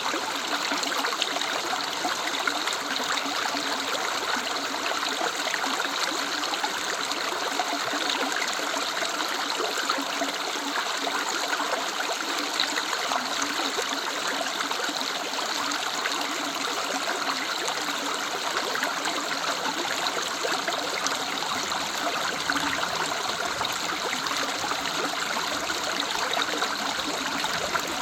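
A woodland river running steadily over stones, a constant rushing and trickling of water.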